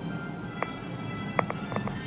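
Music with short, sharp percussive knocks in an uneven pattern, several of them clustered in the second half.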